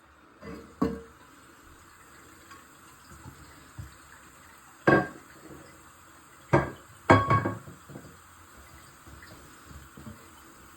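Several sharp knocks and clunks of hard objects being handled, one about a second in, then louder ones about five, six and a half and seven seconds in.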